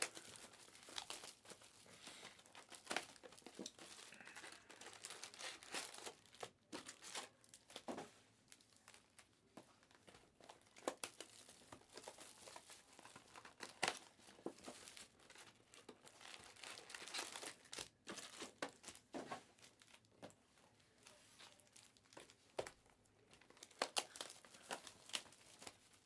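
Faint crinkling and tearing of Panini Mosaic Fast Break trading card pack wrappers being ripped open and handled, with scattered short rustles and clicks.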